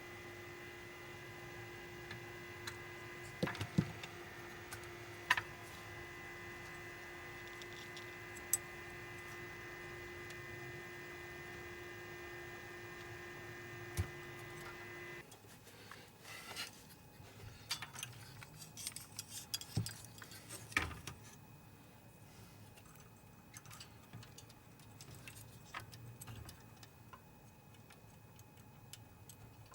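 Powered-up BenQ DLP projector giving a steady hum with a high whine, which cuts off suddenly about halfway through. Sharp clicks and small rattles of parts being handled sound throughout, bunched together just after the hum stops.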